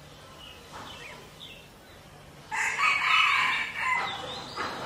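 A rooster crows once, loud, starting about halfway in and lasting about a second and a half, over faint short bird chirps.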